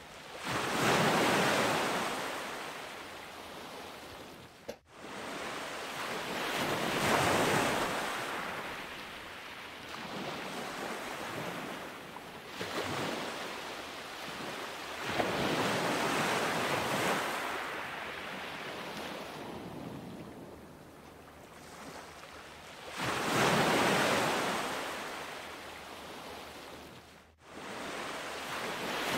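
Ocean surf: waves swelling and washing out every few seconds, with two brief dropouts.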